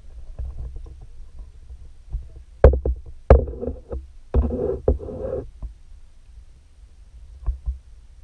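Muffled underwater sound picked up through a GoPro Hero 4's waterproof housing: a low rumble, broken by sharp knocks and clatter in two bursts about two and a half and four and a half seconds in.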